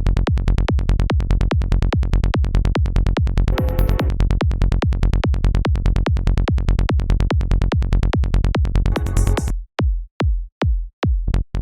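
Psytrance kick drum and rolling bass pulsing in a fast, even rhythm, with short noise sweeps about three and a half seconds in and again near nine seconds. Near the end the bass falls away, leaving gaps between the kick hits for a few beats.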